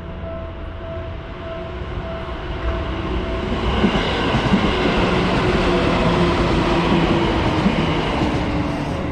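Seibu Tamagawa Line train passing over a Japanese level crossing, building up about three seconds in, loudest in the middle with wheel clacks, and easing off near the end. Under it the crossing's warning bell rings in a steady repeating ding, about one and a half strikes a second.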